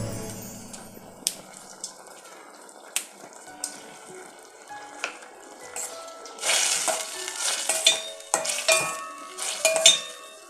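Chopped tomato and dried red chillies frying in oil in a steel pot, sizzling, with scattered clicks of a spoon on the metal. About six seconds in, stirring makes the sizzle louder in two spells, with sharp clinks of the spoon against the pot.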